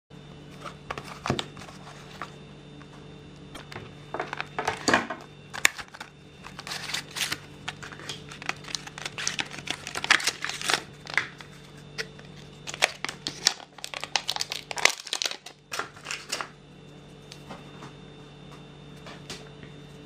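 Clear plastic bag crinkling and rustling in irregular crackles as hands work a folding knife out of it, stopping about sixteen seconds in.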